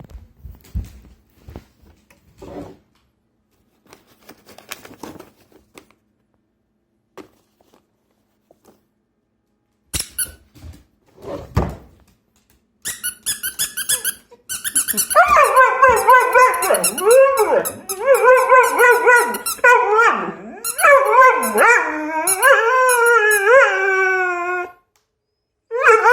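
A few faint knocks, then about halfway in a pet dog starts a long run of loud, high-pitched, wavering whines and howls that bend up and down in pitch, breaking off shortly before the end.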